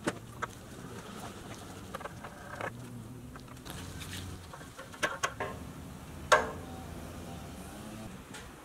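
Small sharp metal clicks and taps from a C-frame screw clamp tool pressing rivets into a toy truck's pressed-steel pickup bed. They come scattered, with a cluster about five seconds in. The loudest click comes about six seconds in and rings briefly.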